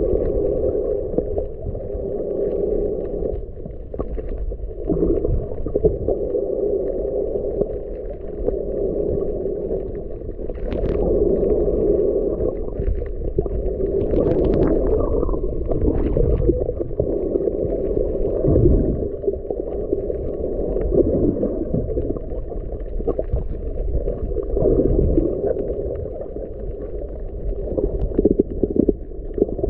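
Muffled underwater noise picked up by a submerged camera while snorkeling: a steady dull rushing of moving water that swells and fades every few seconds. There are a few faint crackles about a third and halfway through.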